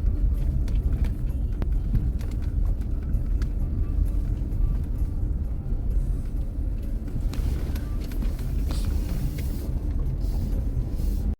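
Steady low rumble of a motor vehicle on the move, with scattered knocks and rattles.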